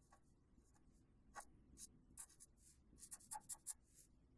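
Faint scratching of a pen drawing on paper: short strokes, each a fraction of a second, coming more often in the second half.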